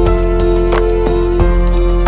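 Background music: held notes over a steady beat, with a percussive hit about every two-thirds of a second.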